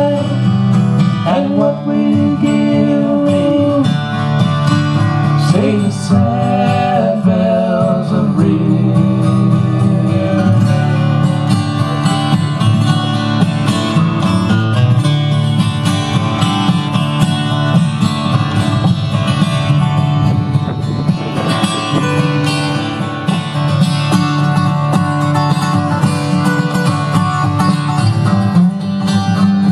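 Two acoustic guitars strumming and picking in a country-folk style, with a voice holding wavering notes over them in the first several seconds.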